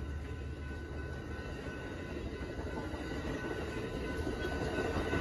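Bilevel Amtrak passenger cars rolling past at a grade crossing: a steady rumble and rush of wheels on rail that grows a little louder toward the end, with faint steady high tones above it.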